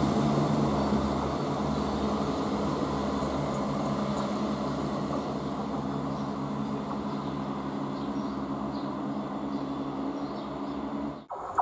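Class 170 Turbostar diesel multiple unit running away along the line, its diesel engines giving a steady low hum that slowly fades as the train recedes into the tunnel. The sound cuts off abruptly shortly before the end.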